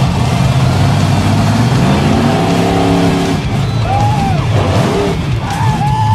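Hot Wheels monster truck's 1,700-horsepower engine running loud as the truck drives and jumps over crushed cars, its pitch climbing in a hard rev about two seconds in.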